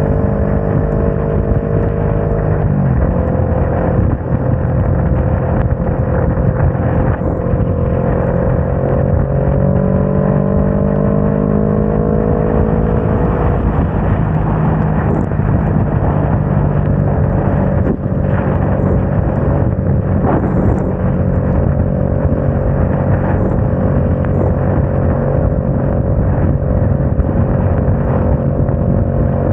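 Motorcycle engine running at highway speed over a steady rush of wind and wet-road noise. Its note drops suddenly about three seconds in, climbs slowly as the bike speeds up, then settles back and holds steady.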